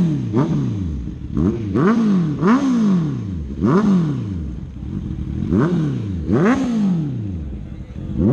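Superbike engines revved hard again and again: about six sharp rises in pitch, each falling away over a second or so.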